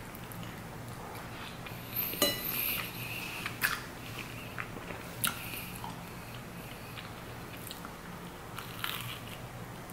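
Eating at the microphone: bites and chewing of a toast sandwich of multigrain bread and barbecue jackfruit 'pulled pork', with a few sharp crunches of the toasted bread about two, three and a half, and five seconds in. A steady low hum runs underneath.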